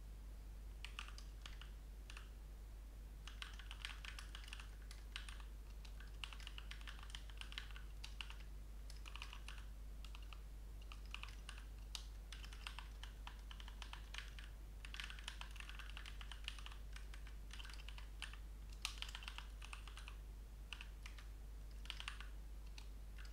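Typing on a computer keyboard: irregular runs of key clicks with short pauses between bursts, over a faint steady low hum.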